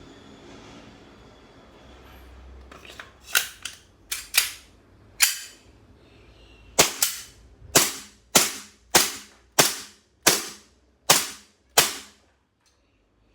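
Double Bell Glock 17 gas blowback airsoft pistol test-fired, about fourteen sharp shots. The first few come in an uneven burst, then a steady string follows, one shot every half-second to second, until it stops about 12 seconds in. The gas is holding without leaking.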